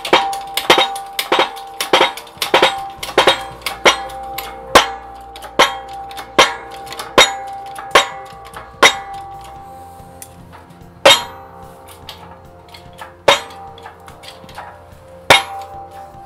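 Repeated ringing metal clanks from a hydraulic shop press while a new wheel bearing is pressed into a Polaris RZR spindle. They come about two a second at first, slow to about one a second, then to one every two seconds near the end, each leaving a ringing tone.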